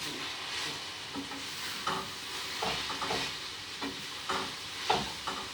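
Stir-fry vegetables sizzling in a hot pan, with a utensil scraping and stirring them in short strokes about once a second.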